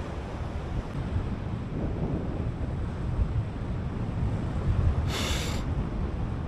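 Wind buffeting the microphone during paraglider flight: a steady low rumble, with a brief hiss about five seconds in.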